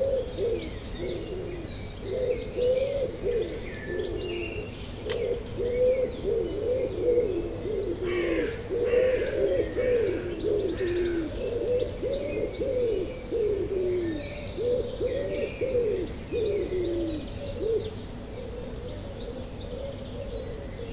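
Dawn chorus of birds: a dense, continuous run of low, repeated arching calls, with scattered higher chirps and trills from several songbirds.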